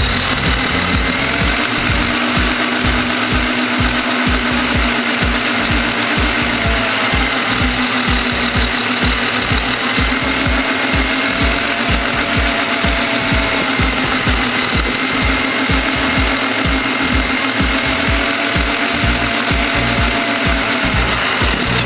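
Axial Wraith 1/10-scale electric rock crawler driving, heard from a camera mounted on the car: its brushless motor and gear drivetrain whine and rattle, with a fast, regular low pulsing. The whine's pitch drifts slowly as the speed changes.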